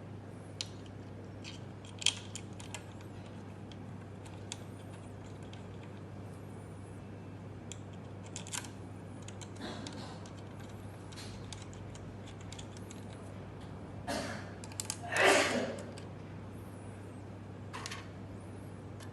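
Small metal parts and screws being handled during assembly: scattered sharp clicks and taps, with a louder scrape lasting about a second and a half near the end, over a steady low hum.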